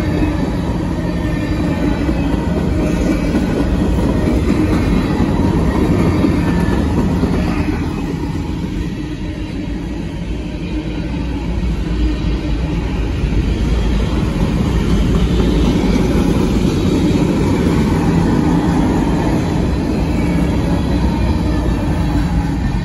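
Freight train of covered hopper cars rolling past a grade crossing, a steady rumble of steel wheels on rail that eases slightly for a few seconds about a third of the way through.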